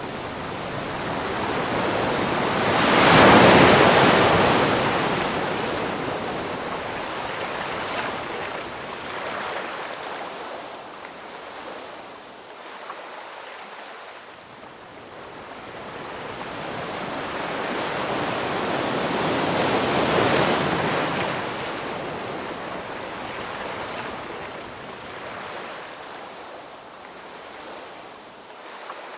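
Ocean waves breaking on a shore: two large waves crash about three seconds in and again about twenty seconds in, each surging and then washing back, with smaller swells between.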